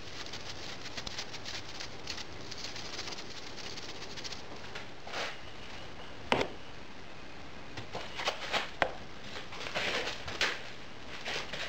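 Moulding sand being riddled through a sieve into a metal moulding flask, falling as a fine steady patter of grains. About six seconds in there is one sharp knock, then several louder pours and rustles as scoops of backing sand are tipped into the cope.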